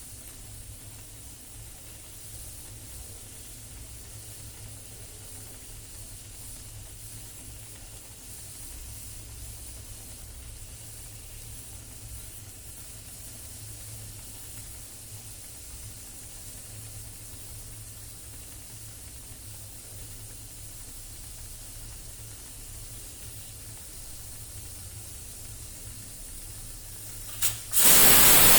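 A pressure cooker hissing faintly and steadily under a low hum. Near the end a click is followed by a sudden, loud, steady rush of steam venting.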